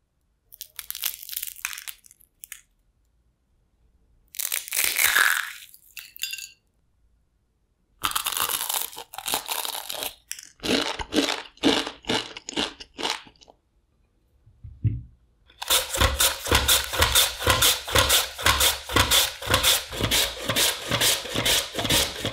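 Crisp deep-fried shredded-potato nests crunching and crackling in short bouts as they are handled and broken. About two-thirds of the way in, a potato is run over a julienne mandoline slicer in fast, even strokes, about three a second, shredding into a glass bowl.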